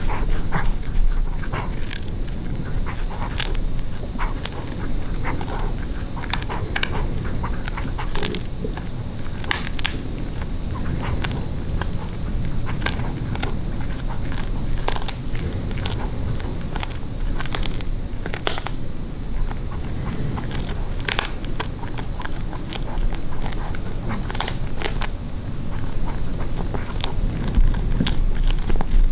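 Tabby cat chewing chicken neck, close up: irregular wet crunches and clicks of teeth on meat and bone. Her teeth are weak, so she chews lightly and tries to swallow pieces whole.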